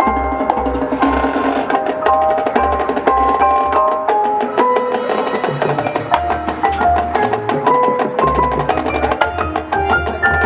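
Marching band playing its competition field show: quick runs of short pitched percussion notes over drum hits and a low bass pulse.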